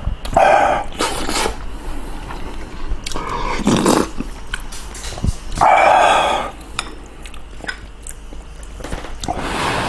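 Close-up eating sounds of kimchi stew and rice: loud, wet mouth noises in short bursts every couple of seconds, with quieter chewing between them.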